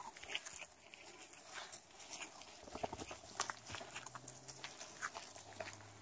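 Faint footsteps and rustling through forest undergrowth, a scatter of irregular soft clicks. A faint low steady hum comes in about halfway through.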